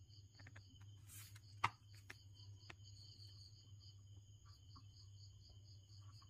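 Crickets chirping in fast pulsing trills in the background over a low hum, faint against near silence. A few short clicks and taps from handling the circuit board and its MOSFETs come in the first few seconds, the sharpest about one and a half seconds in.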